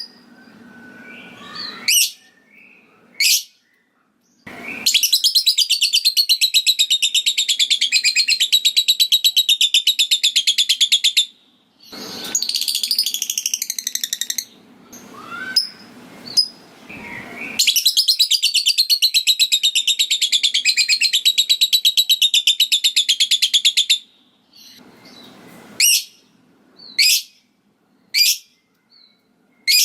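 Lovebird giving its 'ngekek': two long, fast rattling trills of about six seconds each, with short sharp chirps and a burst of chatter before, between and after them.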